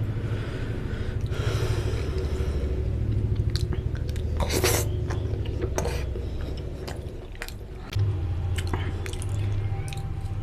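Close-miked chewing of puri and goat lung and intestine curry: steady mouth sounds with many small wet clicks, and one louder bite about four and a half seconds in.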